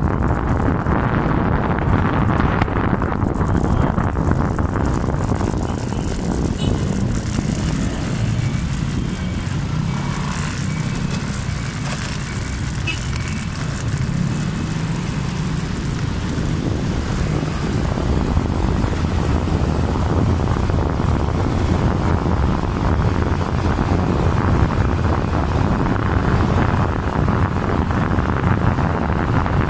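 Wind rushing over the microphone of a moving motorcycle, with a steady low rumble of engine and road noise underneath. It eases a little around the middle.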